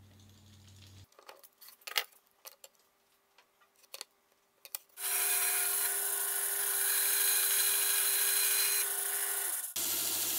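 A few light clicks and knocks of a bar clamp and wooden pieces being handled, then a bandsaw running and cutting a small block of wood for about five seconds, cut off suddenly, and a disc sander grinding a wooden piece near the end.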